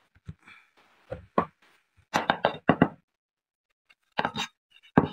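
Short wooden knocks and taps of a board against a wooden bench top: a pair, then a quick run of several, then two more near the end.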